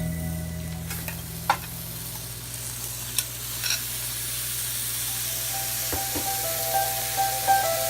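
Food sizzling as it fries in a pan, with a few sharp clicks of a utensil against the pan while it is stirred. Soft background music comes in after about five seconds.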